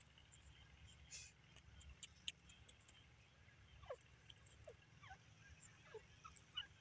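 Near silence with faint sounds: soft clicks of a grey francolin pecking and scratching in dry soil, then from about four seconds in a string of short, faint, falling bird chirps.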